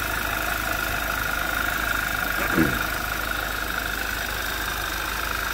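2011 Audi TT 2.0 TFSI turbocharged four-cylinder engine idling, with a steady high-pitched whine over it and a low rapping noise. The owner suspects a noisy vacuum pump, or else a high-pressure fuel pump roller tappet knocking in its bore.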